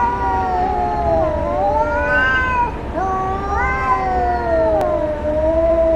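Cats yowling in a fighting standoff: long, drawn-out, wavering wails that rise and fall in pitch. One wail breaks off a little before halfway, and another starts right after and sinks lower near the end.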